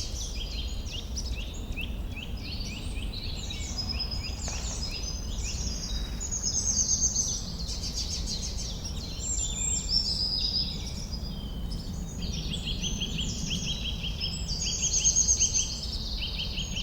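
Forest birdsong chorus: many birds chirping and trilling at once in quick, overlapping high phrases, over a low steady rumble.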